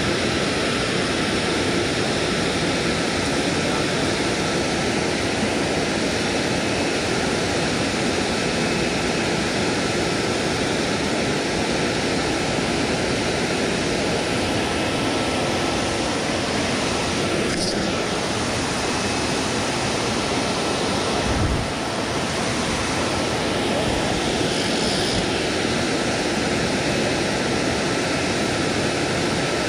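Steady rushing of water pouring over a dam spillway, with a brief low thump about two-thirds of the way through.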